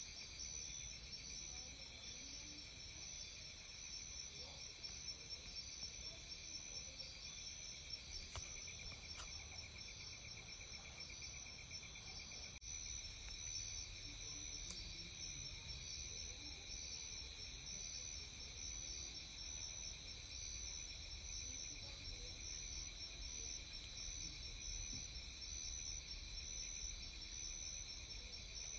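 Chorus of insects trilling: several steady high trills at different pitches, one of them pulsing rapidly, over a faint low rumble.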